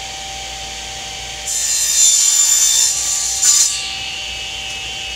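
Table saw running with a steady whine while its blade cuts a piece of oak trim pushed through on a crosscut sled. The cut starts about a second and a half in, lasts about two seconds, and ends with a short, sharper burst.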